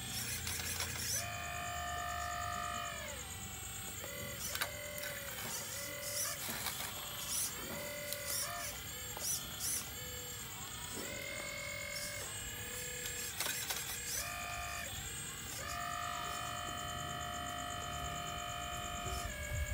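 Long-arm RC hydraulic excavator at work: its pump motor whines, stepping up in pitch for a second or more each time the boom or bucket moves and dropping back between moves, about eight times. A few short sharp clicks and scrapes come from the bucket in the sand.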